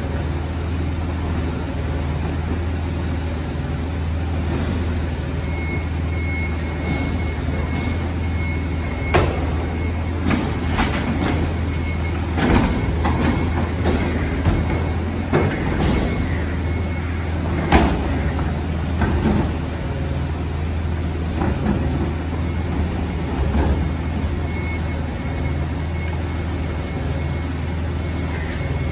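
Rear-loader garbage truck's engine running steadily while its hydraulic bin lifter tips a plastic wheelie bin into the hopper. A run of sharp clanks and knocks comes through the middle as the bin is lifted, shaken out and lowered, with a faint steady high tone twice.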